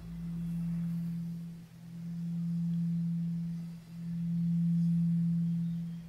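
Tibetan singing bowl sustaining one low steady tone on the note E (MI, about 164 Hz), swelling and fading in slow waves that dip about every two seconds.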